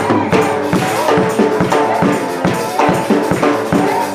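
Live worship music with a steady drum beat, percussion and keyboard or guitar chords.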